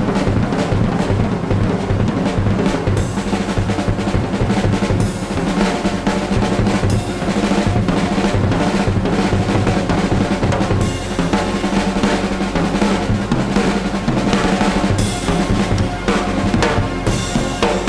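Soundtrack music driven by a busy drum kit, with bass drum and snare, playing without a break.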